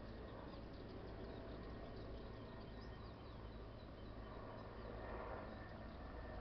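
Faint outdoor background noise with small birds chirping in quick, high notes, which thin out after the first few seconds.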